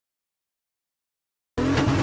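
Dead silence, then about one and a half seconds in a loud sound effect cuts in abruptly: a fast rattling over a steady low hum and a held tone.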